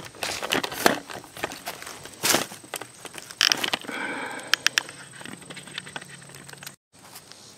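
Footsteps crunching through dry leaf litter and brush on a forest floor, with scattered sharp cracks and rustles. A short pitched sound comes about halfway through, and the audio drops out briefly near the end.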